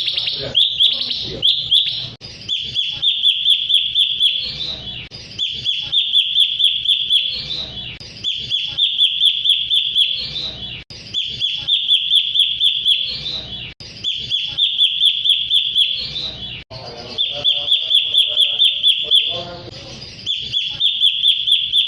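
Cucak cungkok bird song played as a lure call: fast runs of high chattering notes in phrases that repeat about every three seconds, with short gaps between.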